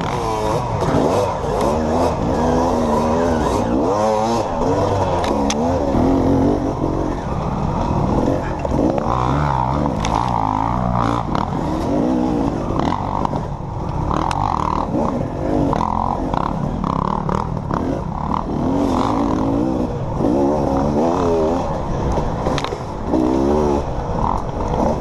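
Off-road motorcycle engine heard from the rider's helmet camera, revving up and down continually as the throttle is worked on a tight trail, with scattered sharp clicks and scrapes.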